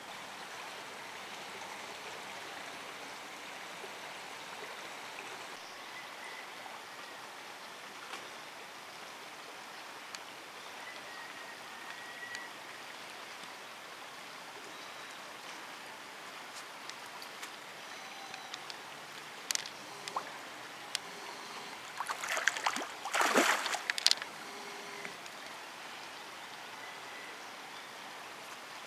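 Steady rushing of flowing river water. About two-thirds of the way in comes a cluster of loud splashes as carp thrash and gulp at the surface.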